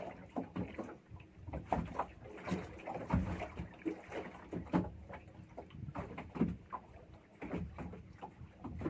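Small boat afloat, with water slapping against the hull and the boat knocking in irregular short hits, several a second.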